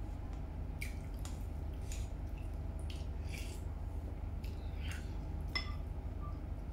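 Mukbang eating sounds of meatball soup: wet chewing, with scattered clicks and clinks of chopsticks and a ceramic spoon against a stainless steel bowl, one ringing clink about five and a half seconds in. A steady low hum runs underneath.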